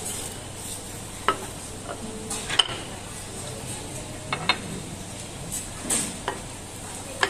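Ceramic plates and utensils clinking and knocking as dishes are set down on a table: a handful of short sharp clinks spread over a few seconds, over a steady background hiss.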